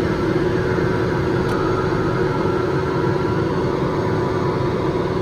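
Steady cockpit noise of a Piper Meridian's Pratt & Whitney PT6A turboprop: an even drone with one constant note running through it.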